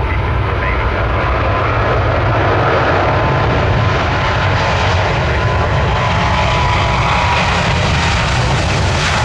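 Jet airliner's engines running: a loud, steady rush of noise with a thin whine held at one pitch.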